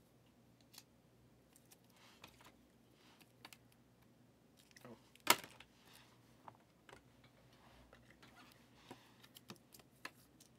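Faint plastic rustling and soft clicks as a trading card is handled in a soft plastic sleeve and slid into a rigid clear plastic holder, with one sharper click about five seconds in.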